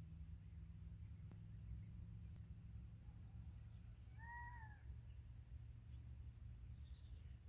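Quiet outdoor ambience: faint, scattered high chirps of distant birds over a low steady rumble. About four seconds in, one short call rises and falls in pitch, from an animal.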